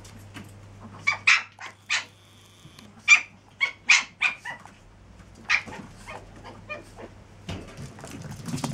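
Chihuahua puppy yipping: about nine short, high-pitched yips in two quick runs, with a low rustle near the end.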